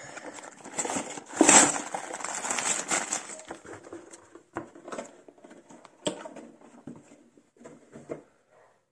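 Sealed plastic bags of LEGO bricks crinkling and rattling as they are slid out of a cardboard box onto a table. The rustling is densest and loudest about a second and a half in, then thins to a few scattered taps and rustles that die away near the end.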